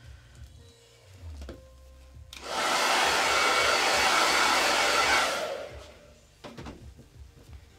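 Handheld hair dryer blowing on a damp mesh transfer to dry it: it starts abruptly about two seconds in, runs steadily for about three seconds, then dies away. Faint knocks of handling come just before it.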